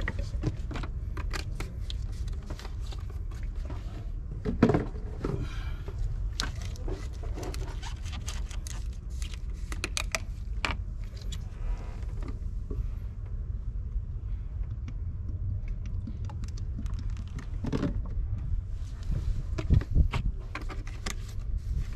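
Plastic motor-oil bottles clicking and knocking as they are handled and swapped on a no-spill funnel while oil drains into the engine's filler, over a steady low rumble. The loudest knocks come about five seconds in and again near the end.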